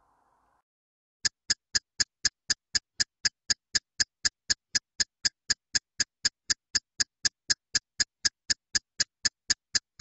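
Countdown timer sound effect: a clock-like ticking, about four sharp ticks a second, starting about a second in.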